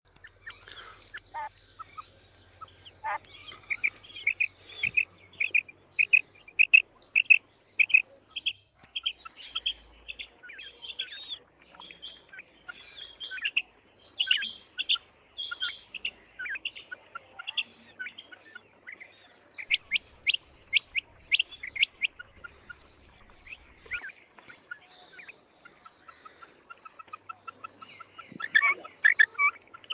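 Female quail (batair) calling: runs of short, high notes, about two or three a second, broken by brief pauses.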